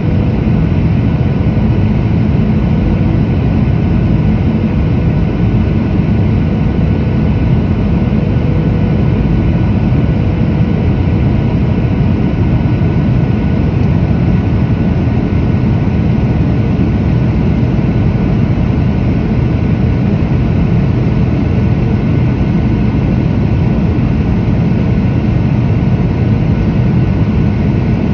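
Steady in-flight cabin noise of a Boeing 737-800 heard beside the wing: a deep rumble from the CFM56-7B turbofan and the airflow, with a hiss above it and faint steady whining tones.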